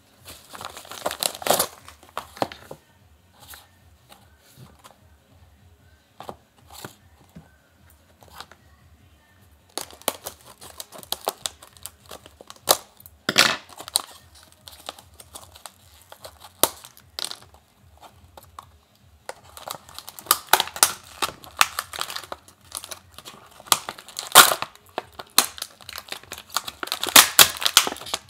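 Paper and plastic packaging being torn open and handled: a padded mailing envelope, a plastic blister pack and a clear plastic bag crinkling and tearing in irregular bursts, quieter for a few seconds early on and busiest in the second half.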